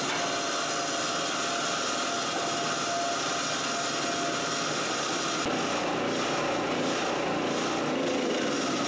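Harbor Freight Chicago Electric 3000-watt portable generator's small single-cylinder engine running steadily on full choke with its fuel valve shut, burning the last gasoline out of the carburetor. Its sound changes about five and a half seconds in.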